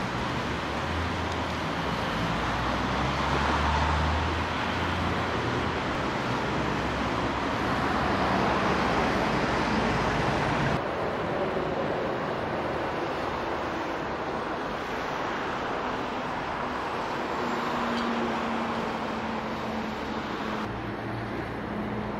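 Road traffic on a city street: cars passing, a steady hum of engines and tyres. The sound changes abruptly about halfway through and again near the end, where the recording is cut between shots.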